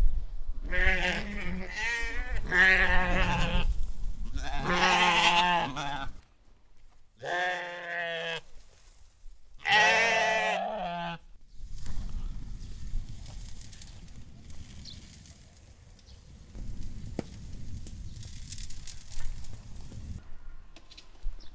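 Sheep bleating: several wavering, quavering bleats in the first half, then it goes quieter.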